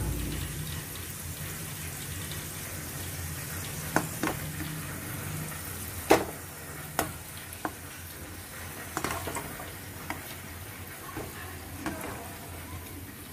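Litti dough balls sizzling steadily as they fry in hot ghee, with several sharp clinks of a perforated metal skimmer knocking against the pan as they are turned and lifted out.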